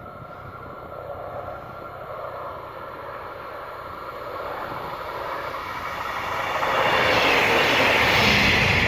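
Rescue helicopter on its landing approach: a steady rotor and engine noise that grows louder as it comes closer, swelling sharply about seven seconds in.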